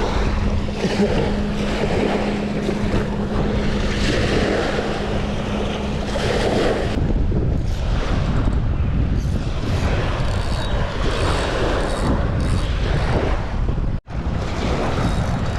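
Wind buffeting the microphone over the wash of waves. A steady hum runs under it and stops about halfway through. The sound cuts out for an instant near the end.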